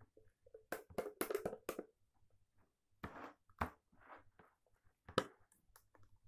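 Hands pressing and patting slime on a plastic tray: soft sticky squelches and sharp little smacks. A cluster comes about a second in, more around three seconds, and one near five seconds.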